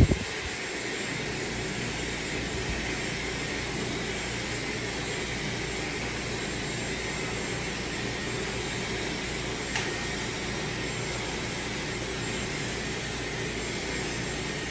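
Dyson Supersonic hair dryer blowing steadily: an even rush of air with a faint high whine from its motor.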